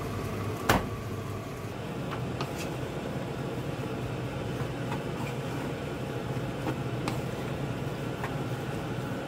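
Rice being stir-fried with a wooden spatula in a nonstick pan: a sharp knock about a second in, then a few light clicks of the spatula against the pan over a steady background hum and hiss.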